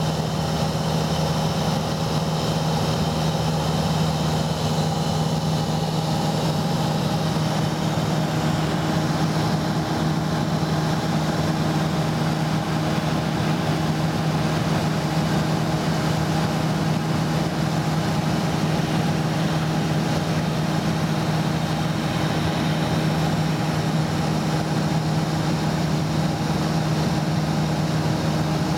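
Light aircraft's piston engine and propeller droning steadily at cruise, heard from inside the cabin, with an even pitch and no change in level.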